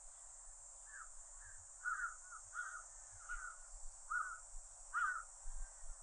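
Steady high-pitched drone of cicadas, with a bird giving a string of about eight short, harsh calls from about a second in.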